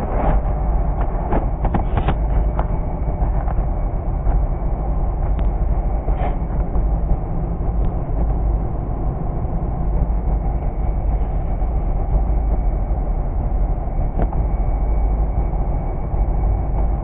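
Steady low rumble of a Mercedes-Benz bus's engine running, heard inside the passenger cabin. Light metallic clicks from a hand tool on the floor hatch's screws come several times in the first few seconds and a few more times later.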